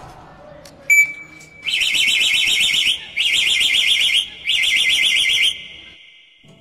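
Car-alarm siren sound: a click, a short steady beep, then three bursts of fast warbling siren, each about a second long.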